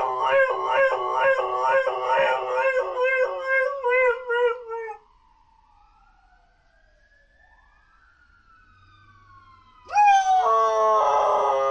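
A dog howling on command, a long wavering 'talking' howl whose pitch bobs up and down about twice a second. It breaks off about five seconds in, leaving only faint gliding tones, and starts again loudly near the end.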